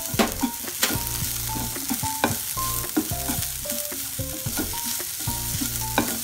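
Onions, green chillies and spice powders sizzling in a nonstick frying pan while a spatula stirs and scrapes through them, with frequent knocks of the spatula against the pan. The masala is being sautéed until the spice powders lose their raw smell.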